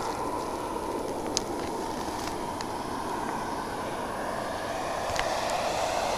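Steady rushing outdoor noise, with a few faint clicks.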